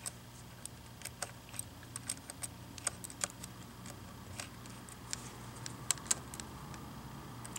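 Faint, irregular small clicks and ticks of a precision electronics screwdriver working a screw out of a laptop screen's metal mounting bracket.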